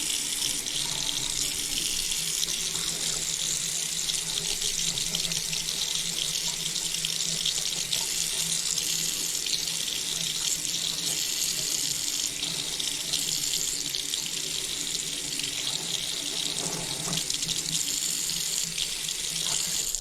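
Tap water running steadily into a newly installed sink basin, a leak test of the fresh plumbing.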